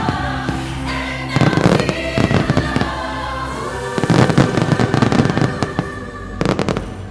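Fireworks going off over music: two dense spells of rapid crackling and banging, then a few sharp bangs near the end.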